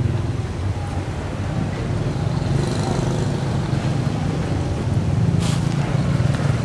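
Steady low rumble of motor-vehicle engines and road traffic, with a short burst of hiss about five and a half seconds in.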